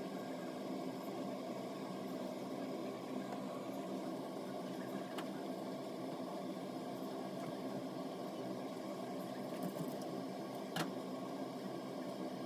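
Steady hum of a small motor, with two faint knocks, about five seconds in and near the end, as a whole raw chicken is handled and cut up on a plastic cutting board.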